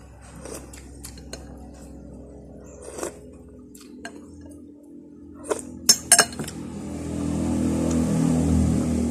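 Eating sounds: a spoon clicking and clinking against a plate, with three sharp clinks a little past halfway. Over the last few seconds a motor vehicle passes, swelling up and then fading.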